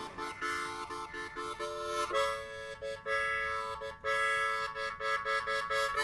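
Background music: a harmonica playing a melody of short notes and chords.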